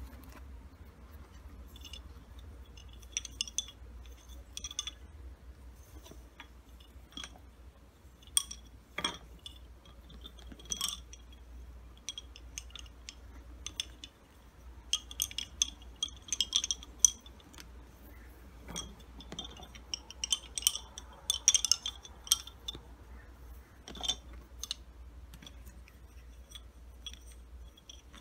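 Wooden lace bobbins clicking and clinking against each other in scattered clusters as they are handled and crossed.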